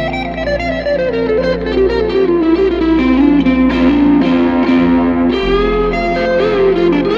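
Electric guitar lead from a Fender Stratocaster with Tupelo Bear pickups, played through a Knight of Tone pedal into an Ace Colt amp. A fast run steps down in pitch over the first few seconds, then settles into held notes with vibrato near the end.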